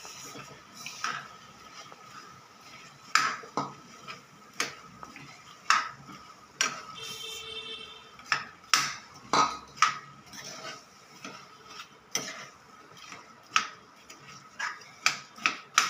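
Metal spoon clinking and scraping against a pressure cooker pan while stirring grated jaggery into a thick mash of cooked grated raw mango, with irregular sharp knocks every second or so.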